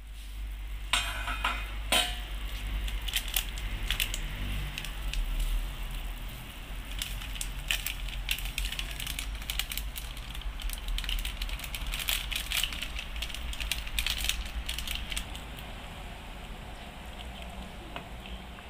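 Chicken broth at a rolling boil in a stainless steel pot: steady bubbling with a scatter of small pops and crackles, over a low steady hum.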